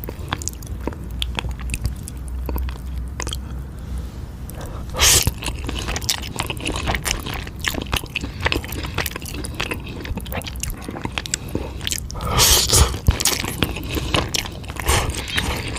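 Close-miked eating of eel and spicy instant noodles: wet chewing and biting with many small clicks and smacks. There are two louder, longer noisy swells, one about five seconds in and one around twelve to thirteen seconds.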